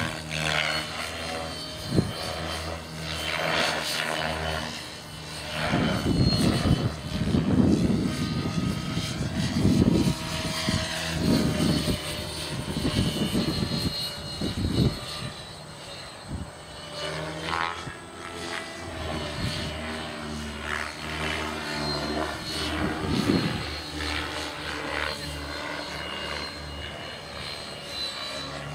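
Align T-Rex 600E Pro electric radio-controlled helicopter flying hard aerobatics: a steady whine from the motor and drivetrain with rotor blade noise that swells and fades, loudest in the middle stretch.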